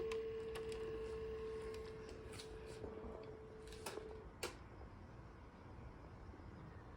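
Panasonic VHS camcorder going into play: a steady, even mid-pitched tone for about four seconds, ending with two sharp clicks, then only faint hiss.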